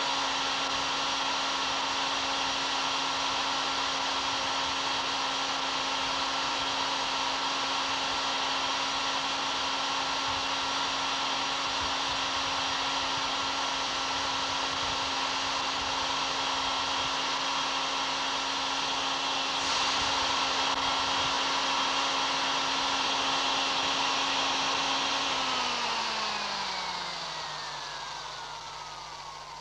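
Electric hand drill running steadily at full speed, a high motor whine, then slowing with a falling pitch and fading as it winds down over the last few seconds.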